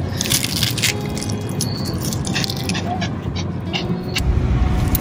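Rustling and a few sharp clicks as a mesh dog harness is handled and buckled onto a small dog, with a low rumble rising near the end.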